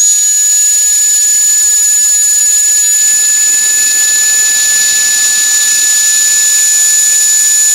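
Retools 21 V cordless drill running continuously at full speed with no load, a loud steady high whine over a hiss, while it draws about 16 A from its battery during a discharge test.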